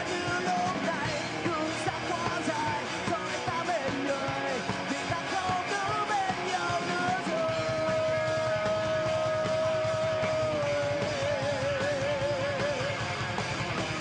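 Live rock band playing: singing over electric guitar and drums. About halfway through a long held note sets in and wavers near the end.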